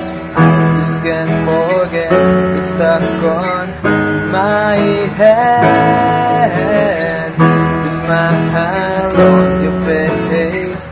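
Background music: a strummed acoustic guitar playing changing chords, with sliding melody notes over them.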